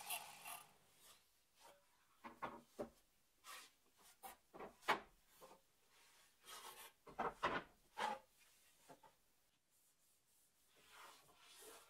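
Pine boards being handled on a wooden workbench: scattered soft rubs, scrapes and light knocks of wood on wood. At the very start, the last of a circular saw blade spinning down fades out.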